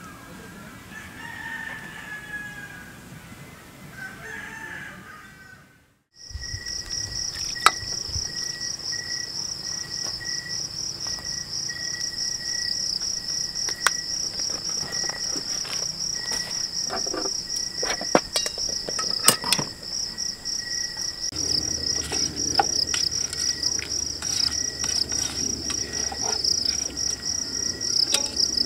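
Crickets trilling in a dense, steady, fast-pulsing high chorus, with a second fainter insect tone beneath, and now and then a sharp click of metal utensils against a cooking pot. In the first few seconds, before a brief gap, birds call faintly.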